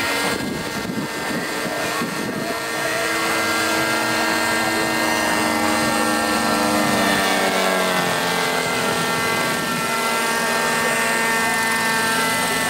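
Radio-controlled scale Bell helicopter model in flight, its motor and rotor making a steady drone of several tones. The pitch dips slightly about seven seconds in.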